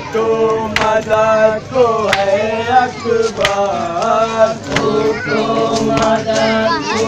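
Group of men chanting a nauha, a Muharram lament, together on held sung notes, with sharp slaps of chest-beating (matam) about once a second.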